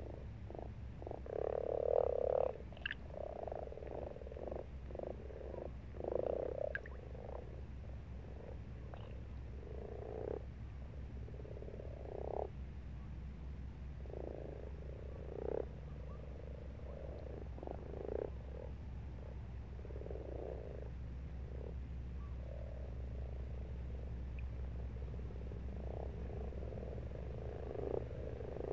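Several frogs croaking in short, low, purring bursts, overlapping thickly for the first several seconds and then coming singly every second or two.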